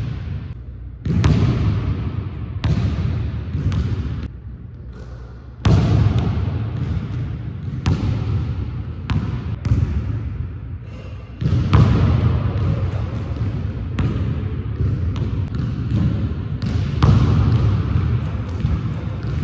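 Basketball bouncing on a hardwood gym floor: repeated hard thumps about a second or so apart, irregularly spaced, each ringing on in the big hall's echo.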